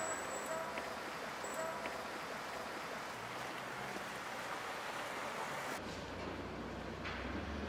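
Steady rush of distant city traffic at night. About six seconds in it cuts abruptly to a quieter background with a low steady hum.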